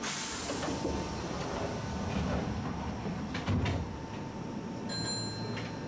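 Inside a stopped electric train at the platform: a steady hum, with a few clunks about three and a half seconds in as the sliding doors close.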